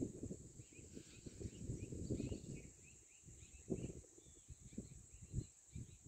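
Wind buffeting the microphone in uneven gusts, over many short bird chirps and a steady high insect drone. The wind gusts are the loudest part.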